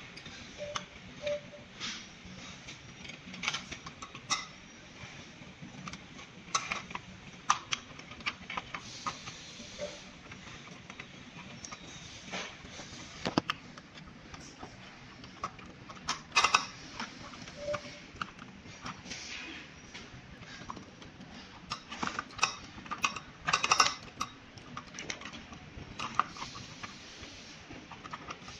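Scattered clicks, knocks and short metallic rattles of e-bike parts and tools being handled during assembly, with louder clusters about halfway through and again near the end.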